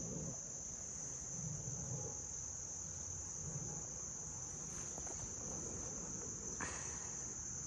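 A steady, high-pitched chorus of insects, one unbroken shrill tone, with a couple of faint knocks, one about five seconds in and one near the end.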